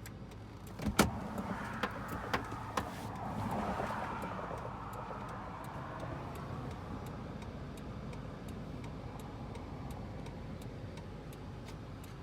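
A stopped or slowly moving car: a sharp knock about a second in and a few smaller clicks over the next two seconds, then a rushing swell of road noise that fades, over a steady low engine rumble.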